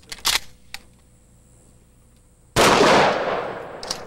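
A few light clicks, then a single shotgun shot about two and a half seconds in, a flechette round fired at a soft body armor vest; the report dies away over about a second. A short click follows near the end.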